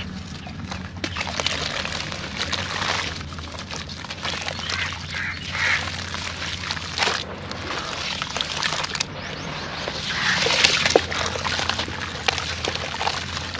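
Dried sand-cement chunks crumbling and crunching: a dense crackle of small grainy cracks and trickling grit, loudest about ten seconds in. A steady low hum runs underneath.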